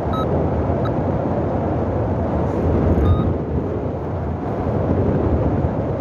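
Wind rushing over the microphone of a paraglider pilot flying in strong wind: a steady, deep, rough noise, with a couple of brief faint high tones near the start.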